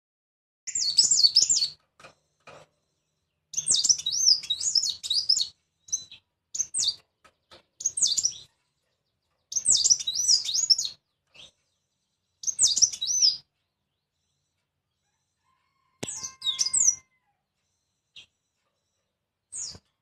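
A caged male cericap songbird singing in short bursts of quick, high warbling notes that swoop up and down. There are about seven phrases, each a second or two long, with pauses between them.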